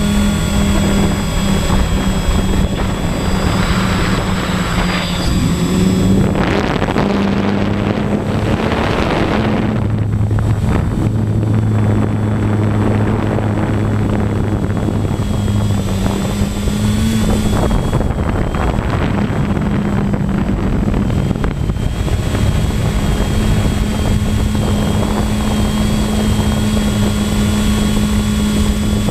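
Propellers and motors of a small radio-controlled aircraft whirring steadily right next to the onboard camera, the hum shifting slightly in pitch as the throttle changes, with gusts of wind across the microphone for several seconds in the first third.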